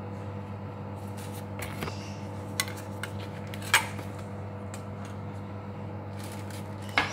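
A few light clicks and knocks of a knife and plastic tray on a stone countertop as a sandwich is put together and the tray is set aside. The loudest click comes a little under four seconds in and another near the end, over a steady low hum.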